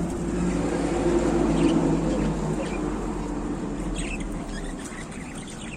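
A passing motor vehicle: its engine rumble with a steady hum swells over the first two seconds and then slowly fades. A few faint lovebird chirps come through in the second half.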